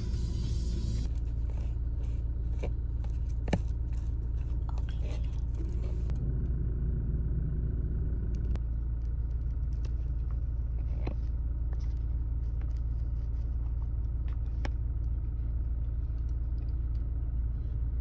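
Steady low rumble of a car ride heard from inside the vehicle, with scattered faint clicks and rattles.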